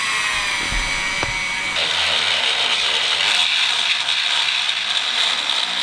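Cordless rotary tool with a grinding stone spinning at high speed, a steady high whine while the aluminium-loaded stone is run against a wire-brush wheel to clean it. About two seconds in, the sound turns to a harsher, louder hiss.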